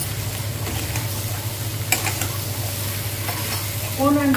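Metal spatula stirring and scraping a cauliflower and potato curry in a steel wok while the masala sizzles, with a couple of sharp scrapes against the pan.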